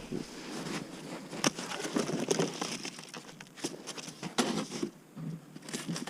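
Irregular knocks, clicks and rustling from a wooden beehive box being handled and opened.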